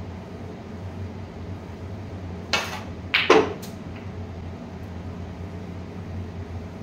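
Snooker balls on a long pot: a sharp clack of ball striking ball about two and a half seconds in, then a quick cluster of knocks as the red drops into the far pocket. A steady low hum runs underneath.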